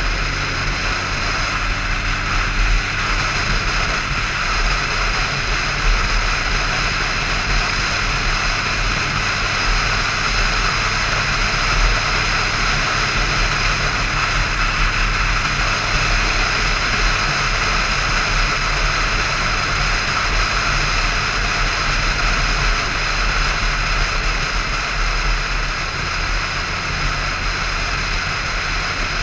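Motorcycle cruising at a steady speed: an even engine drone under the rush of wind and road noise, with wind buffeting the handlebar-mounted microphone.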